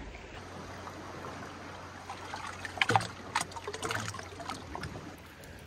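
Water in a shallow rock hot-spring pool trickling and lapping as a bather settles back into it, with a few small splashes about halfway through.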